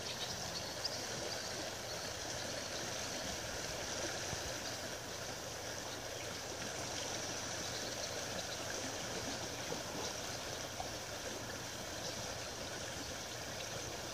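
Shallow river water running over a gravel riffle: a steady rushing.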